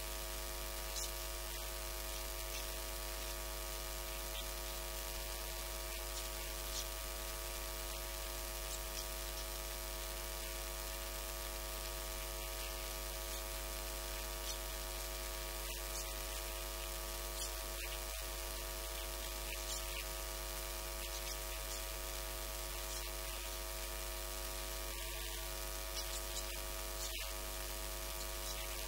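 Steady electrical mains hum with a stack of buzzing overtones and a constant hiss, with a few faint ticks scattered through it.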